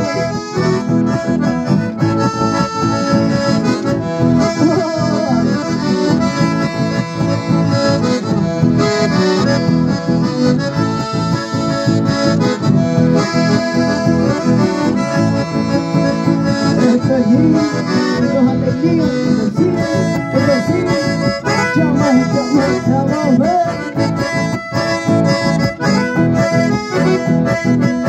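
Accordion-led traditional dance music with a steady beat, playing loudly and without a break.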